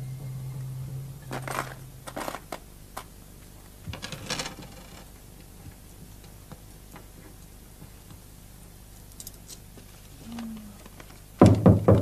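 Faint clicks and rustles of money and small objects being handled on a wooden desk, then, near the end, a rapid series of loud knocks on a door.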